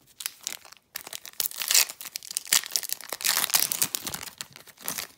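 Foil wrapper of a Fleer Retro football card pack being torn open and crinkled by hand, a dense run of crackling that starts about a second in.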